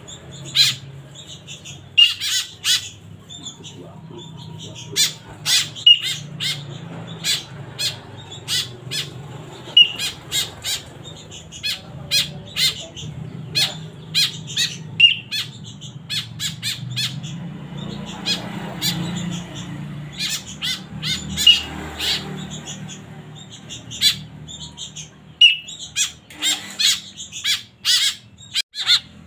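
Fledgling white-breasted woodswallows giving short, harsh begging calls over and over while being hand-fed. Every few seconds there is a short bright toot from a training whistle, all over a steady low hum.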